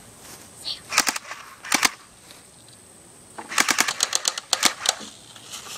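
Airsoft guns firing: a few quick shots about a second in, two or three more just before two seconds, then a longer rapid string of shots from about three and a half to five seconds.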